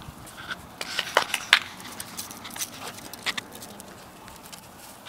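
Small puppies playing on concrete: scattered quick clicks and scuffles of claws and paws on the hard surface, a few sharper ones about a second in.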